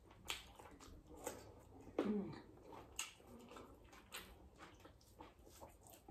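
Close-up eating sounds of a person eating rice and dal with her fingers: scattered wet mouth smacks and chewing clicks, with a brief falling squeak about two seconds in.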